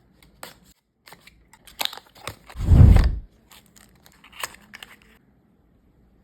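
Earbud box packaging being handled and opened by hand: a run of clicks, snips and crinkles, with one heavy low thud about three seconds in. The handling stops about five seconds in.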